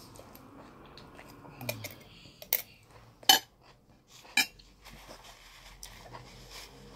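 Metal fork clinking and scraping against a plate of rice: a handful of sharp clinks through the middle, the loudest a little over three seconds in.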